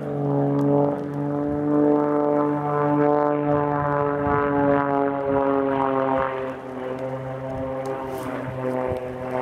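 Extra 330SC aerobatic monoplane's six-cylinder Lycoming engine and propeller running at high power, a strong, steady droning tone. It drops a little in pitch and loudness about two-thirds of the way in.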